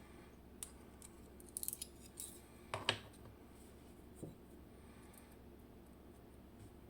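Light clicks and taps of small metal lock parts and tools being handled as the sliders are taken out of a Vachette V DIS+ dimple lock during disassembly: a quick run of four clicks about a second and a half in, and the loudest tap near three seconds.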